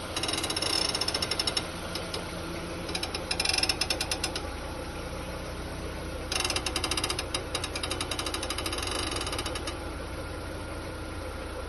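Chevrolet Onix making a fast, rattling clicking from the front end as the steering wheel is turned, with the engine idling underneath. The clicking comes in three bursts, and the last is the longest. This is the strong noise the car makes when manoeuvring with the wheel.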